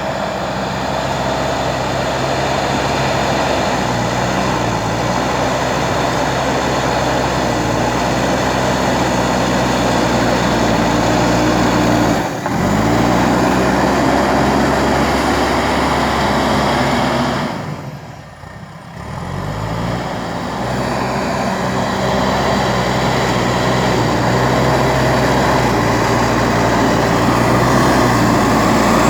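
JCB 3DX Super backhoe loader's diesel engine running steadily at working revs. It breaks off briefly about twelve seconds in and fades out and back a little past the middle, picking up speed again each time.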